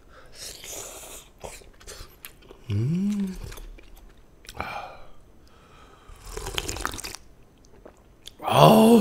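Close-miked mukbang eating sounds: slurping jjamppong noodles and broth from the bowl and chewing. A short hum comes about three seconds in, and a loud vocal burst comes near the end.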